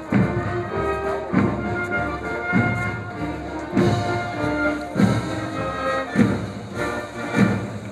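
Band music in march time: held melodic notes over a steady bass drum beat about once every second.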